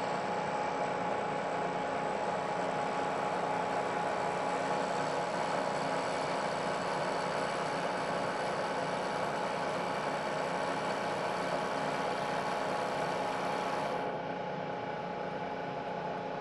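Milling machine taking a power-fed cut across a steel block: a steady machine whine with the hiss of the cutter. About 14 seconds in, the higher hiss drops away sharply while the machine keeps running.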